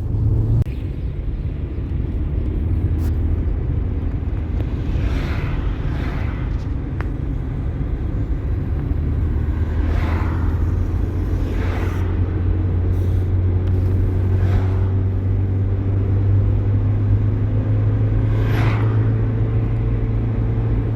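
Motor vehicle engine running steadily with a low drone, with a few brief swishes every few seconds.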